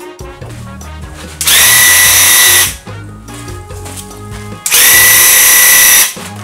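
Power drill running in two bursts of a bit over a second each, a steady high whine, with background music throughout.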